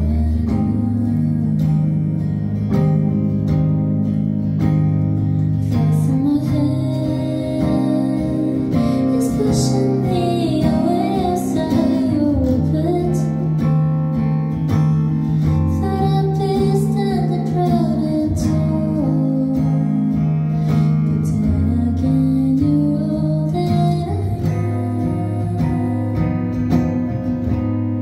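A live song: a woman singing a slow melody over a semi-hollow electric guitar and sustained low chord notes, with the voice coming in a few seconds in.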